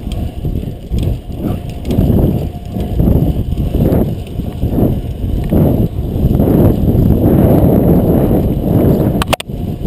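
Fixed-gear bicycle ridden fast in a race: road, tyre and wind noise on the action camera's microphone. It comes in pulses about twice a second, then grows dense and steady. A few sharp clicks and a brief dropout come near the end.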